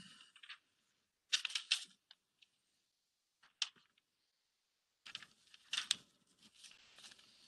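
Faint, scattered clicks and light taps in small clusters, about a second and a half in, again near the middle, and from about five to seven seconds in. They sound like handling of computer or pen-tablet gear at a desk.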